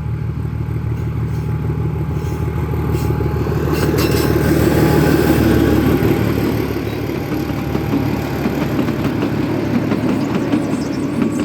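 ZDM4A narrow-gauge diesel locomotive's engine running steadily, growing louder to a peak about four to six seconds in. The engine hum then fades under a continuous rattle of train wheels on the track.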